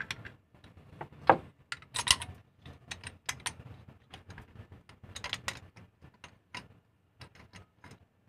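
Hand tools clicking and clinking against metal in an irregular run of sharp knocks, a few of them louder, as the engine's spark plugs are worked on.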